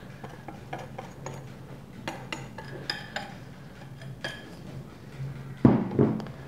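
Kitchen utensil scraping and tapping a glass bowl as flour is tipped into a stainless steel mixing bowl, with light clinks scattered through, then two louder knocks near the end as the glass bowl is set down on the counter. The mechanical timer of a preheating countertop electric oven ticks in the background.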